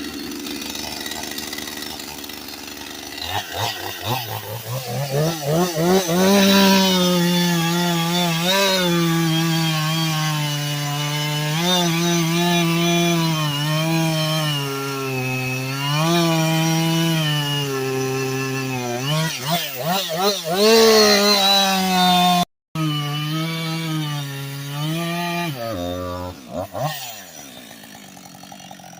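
Husqvarna 562 two-stroke chainsaw being pull-started with the choke off after its first kick. It catches a few seconds in and runs with its pitch rising and falling unevenly. Near the end it winds down and stops.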